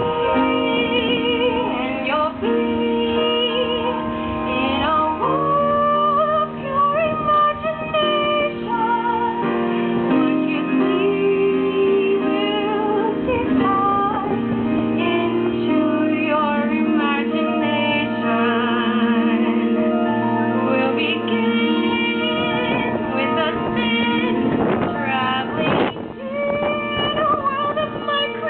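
A female voice singing a solo song with vibrato over held instrumental accompaniment.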